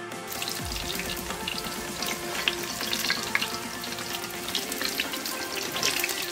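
Battered bread pakora deep-frying in hot oil in a wok: a steady crackling sizzle, with a flat steel spatula stirring and turning it in the pan. Faint background music with held notes underneath.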